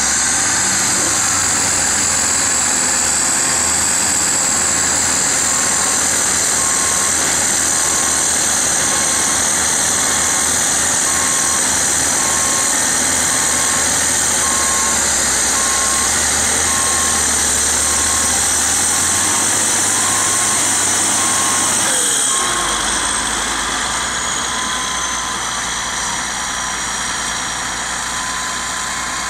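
Caterpillar bulldozer diesel engines running hard under load while a stuck D6H is towed free on a cable, with a reversing alarm beeping steadily. About three-quarters of the way through the beeping stops and the engines drop to a quieter, steadier run.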